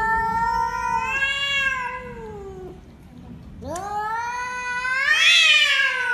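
Domestic cats yowling at each other in a face-off, the drawn-out warning yowl of an aggressive standoff. There are two long wavering yowls with a pause between them, and the second climbs in pitch and grows louder toward the end.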